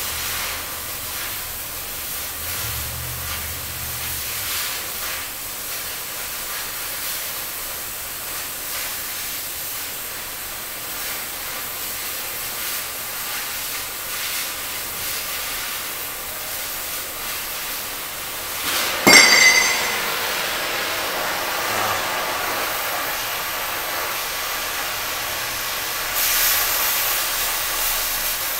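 Oxyacetylene cutting torch hissing steadily as its flame and oxygen jet cut through a steel flat bar. About two-thirds of the way through comes a single sharp clang that rings briefly, and near the end the hiss grows louder and brighter.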